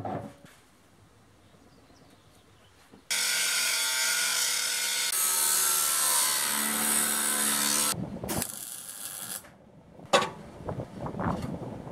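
Angle grinder cutting through a steel bar, starting about three seconds in, running for about five seconds and stopping suddenly. Short knocks and clatter of metal follow.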